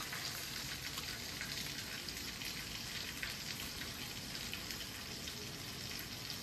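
Oil sizzling in a frying pan: a steady, quiet crackling hiss.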